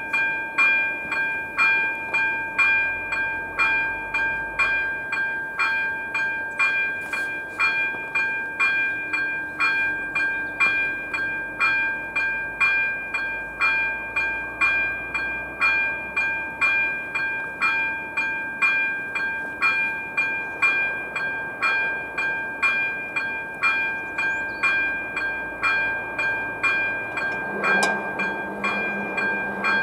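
AŽD 97 level-crossing warning signal's 2nd-generation electronic bell striking at a steady, even rhythm, each stroke a clear ringing tone: the crossing has been activated for an approaching train. Near the end a low hum joins in as the barrier booms start to lower.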